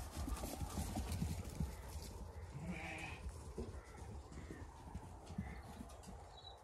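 Zwartbles sheep bleating briefly about three seconds in, with fainter calls after, over soft rustling of hooves on grass and a steady low rumble.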